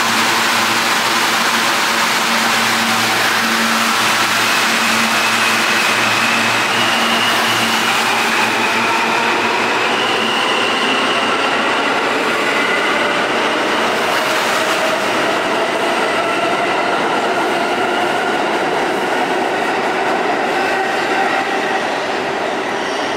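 R160 New York City Subway train pulling out of the station. A steady hum gives way to a propulsion whine that rises in pitch through several tones as the train gathers speed, over the running noise of wheels on rail, easing slightly near the end as it pulls away.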